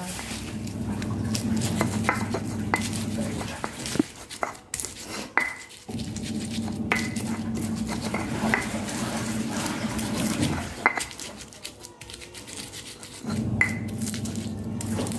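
Stone pestle knocking and grinding against a stone mortar (ulekan and cobek) as chillies, shallots and garlic are crushed, with sharp irregular clicks. Under it a low hum from the washing machine comes and goes in stretches of a few seconds.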